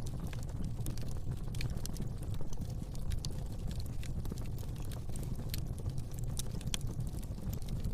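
Fire burning in a fireplace, crackling with many irregular sharp pops and snaps over a steady low rumble.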